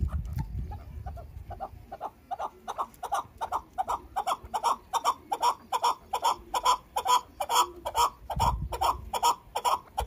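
Chukar partridge calling: a run of short repeated clucking notes, about three a second, that starts faint about a second in and builds in loudness. A brief low rumble sounds near the end.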